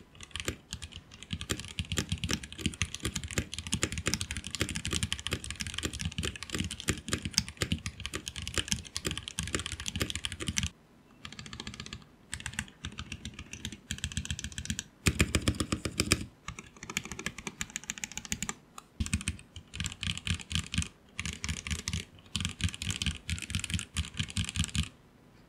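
Typing sound test on a mechanical keyboard fitted with Cherry profile keycaps: fast continuous keystrokes for about ten seconds, then shorter runs of typing separated by brief pauses.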